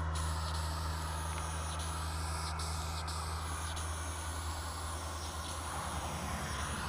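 Aerosol spray paint hissing steadily from a can as a green fill is sprayed onto a wall, over a steady low rumble.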